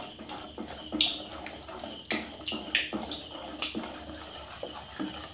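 Small wire whisk stirring a thick rice-flour and pumpkin batter in a stainless steel bowl. Irregular wet slaps and squelches come about twice a second, some with a light clink of metal on the bowl.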